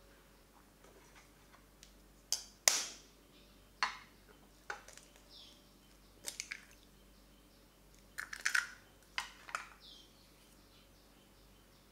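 Eggs being handled and cracked into a small glass bowl: a scattered series of sharp taps, knocks and crackles of shell against glass, coming in clusters with the busiest run about two-thirds of the way through.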